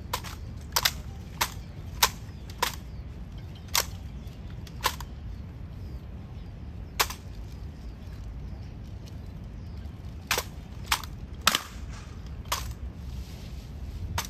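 Sharp, irregular clacks from an honor guard's ceremonial drill on stone paving, about a dozen in all, with a pause of about three seconds midway, over a low steady rumble.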